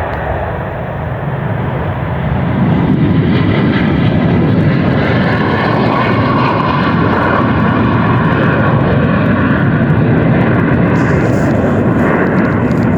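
Airplane taking off: its engines grow louder about two seconds in, then hold a loud, steady rumble with a faint whine over it at takeoff power.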